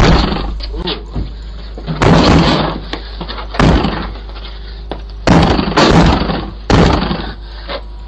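Repeated heavy kicks against a front door, heard through a doorbell camera's microphone: about seven loud thuds a second or two apart, each trailing off briefly, over a steady low hum. The door holds and does not give way.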